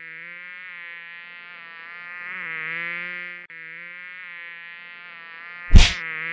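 Mosquito buzzing sound effect, a steady whining drone that wavers and swells in pitch and loudness, with a brief break halfway. Near the end a single loud hand slap cuts in, and the buzzing carries on after it.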